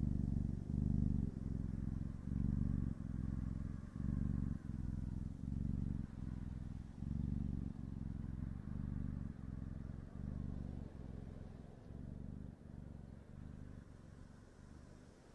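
Kitten purring, a low rumble that swells and breaks with each breath, a little more than once a second, gradually fading toward the end.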